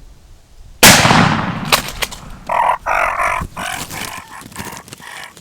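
A single shotgun shot at a wild turkey, one sudden loud blast about a second in that dies away over a second or so. It is followed by a few sharp clicks and then several seconds of short, rough, broken sounds.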